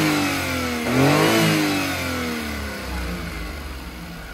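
Carbureted three-cylinder Daihatsu Hijet engine in a Daihatsu Midget II being blipped on the throttle. The revs fall from one blip, rise again to a second peak about a second in, then drop away smoothly and settle back to a solid idle.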